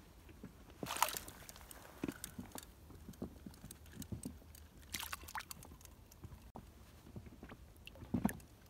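A hooked isaki (chicken grunt) splashing and thrashing at the water's surface, in short bursts about a second in, about five seconds in and just after eight seconds, with light knocks and taps in between.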